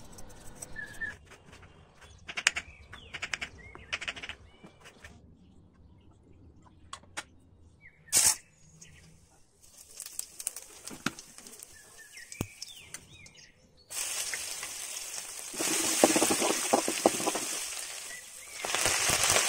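Tempering seeds and dal frying in hot oil in a kadai: a loud sizzle starts abruptly about two-thirds of the way in, with dense crackling and popping, and swells again near the end. Before it there are only scattered clicks and knocks of kitchen work.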